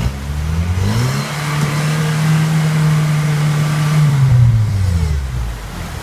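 Rock buggy's engine revving hard under load while crawling up a waterfall ledge. It climbs quickly over the first second, holds at high revs for about three seconds, then drops back near the end.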